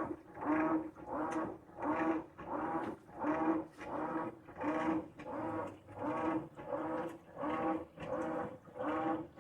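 Whirlpool Xpert top-load washer agitating during a wash cycle: the drive motor hums in short, even strokes, about three every two seconds, as it swings the agitator back and forth.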